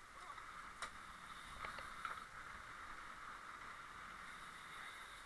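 Steady running noise of a sport fishing boat at sea, with engine and water making an even hiss. A few sharp clicks sound about a second in and again around two seconds in.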